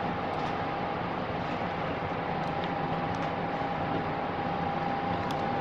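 Steady room noise: an even hiss with a constant faint tone running through it, and a few faint light clicks.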